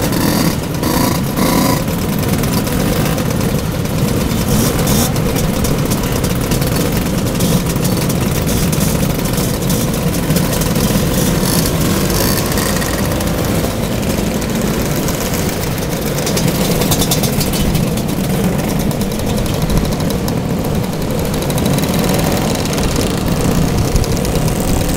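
A large pack of scooters, classic two-stroke Vespas and Lambrettas among them, idling and revving together in a dense, continuous din of many overlapping engines.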